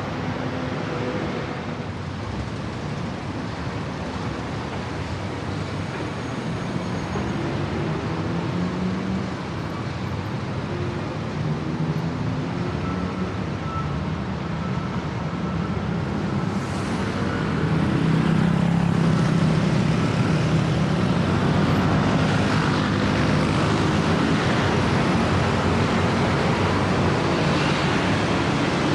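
Traffic on a busy city road: a steady hum of passing vehicles with engine tones rising and falling, growing louder about two-thirds of the way through as traffic moves close by.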